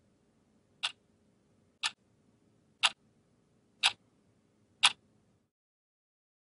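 Quartz clock ticking once a second, five sharp ticks, each a little louder than the last.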